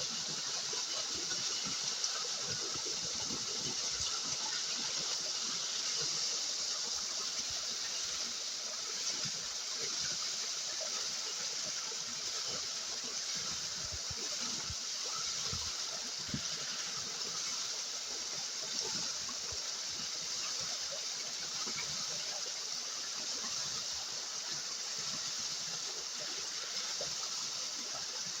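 Steady rush of river water flowing and splashing, with a few small knocks and splashes.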